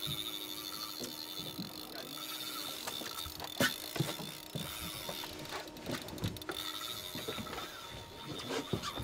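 Spinning-reel drag whining steadily as a hooked fish pulls line off the spool, with a sharp knock about three and a half seconds in.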